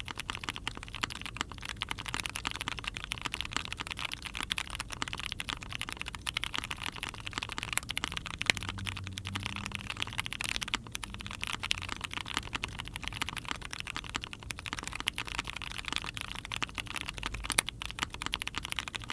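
Continuous typing on an Ai03 Vega mechanical keyboard with a POM plate, GMK keycaps and lubed Cherry-topped OP Grey tactile switches: a dense, unbroken run of keystroke clacks. The owner finds these switches still too scratchy.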